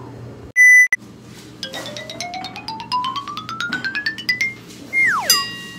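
Comic editing sound effects: a short, loud steady beep about half a second in, then a quick rising run of short pitched notes, then a falling pitch glide and a ringing tone near the end.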